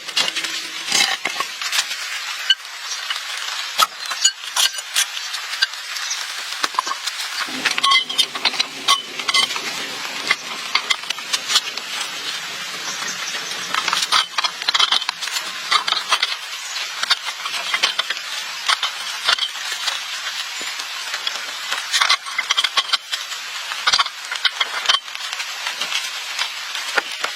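Continuous scraping and clattering with many sharp clicks and knocks, the noise of hands-on repair work.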